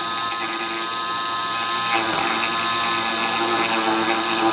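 Dremel rotary tool running at high speed with a steady whine, spinning a length of 3 mm plastic filament against a 3D-printed part so that the friction melts and welds the plastic.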